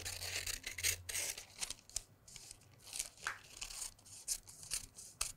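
Scissors snipping through tracing paper in a run of short, irregular cuts, with the paper rustling as it is turned in the hand.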